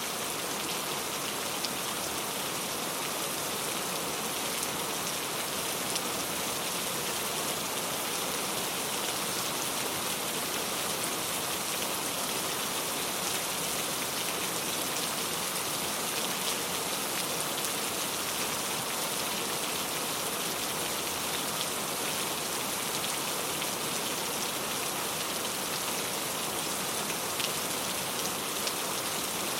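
Steady rain falling, an even hiss made of many small drop ticks.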